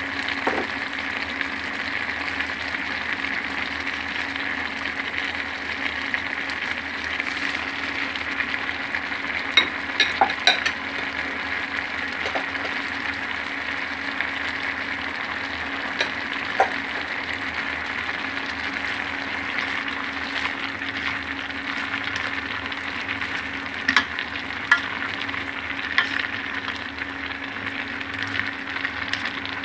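Food sizzling steadily in a hot pan as it is stir-fried, with a few sharp clinks of a cooking utensil against the pan, a cluster about a third of the way in and more near the end.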